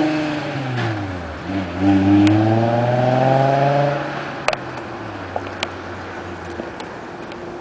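Volkswagen VR6 narrow-angle V6 engine being revved: the revs fall away, climb again in a second rev about two seconds in and hold briefly, then drop back down. The engine note fades out near the end, leaving a few sharp clicks.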